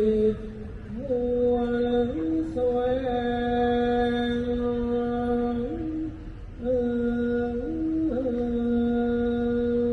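Thai royal barge chant (he ruea): a single voice sings long held notes that step up and down between a few pitches, pausing briefly near the start and again about six seconds in.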